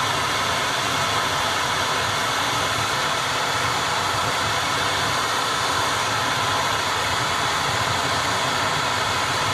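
Gas torch flame burning with a steady hiss while it heats a titanium shift knob to colour it.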